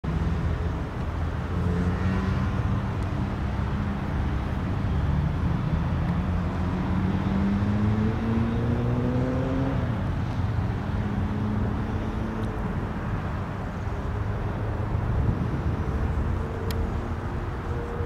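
Road traffic: a motor vehicle's engine note rising steadily for several seconds, then dropping about ten seconds in, over a steady low rumble.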